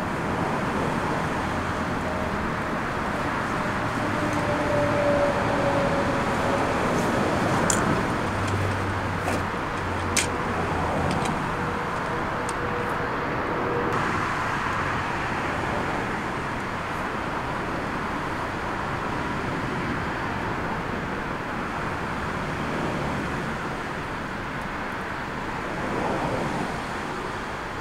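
Jet airliner engines running on the runway, heard at a distance as a steady broad rumble with a faint whine. Gusty storm wind buffets the microphone, with a few sharp pops a few seconds in.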